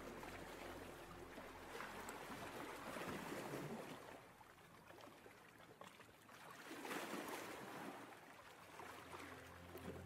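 Soft ocean surf washing in and drawing back in slow swells, about every four seconds.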